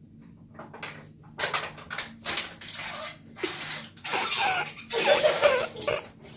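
A boy gulping water from a bottle held upturned at his mouth, the water gurgling and splashing in a run of noisy bursts that grow louder about four seconds in.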